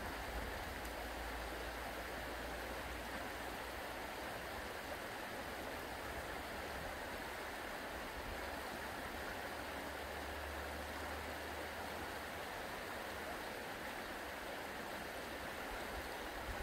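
Fast, shallow mountain river running over a stony bed: a steady, even rush of water.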